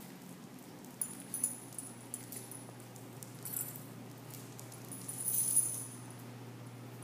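Metal dog tags on a collar jingling in short bursts as a dog moves: about a second in, again around three and a half seconds, and a longer jingle near five seconds, over a steady low hum.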